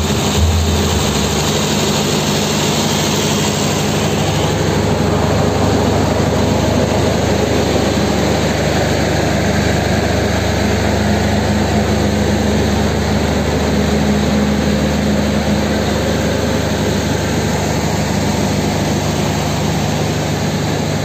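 A large engine running steadily at idle, a low even hum that does not change, after a couple of deep bass thumps in the first second.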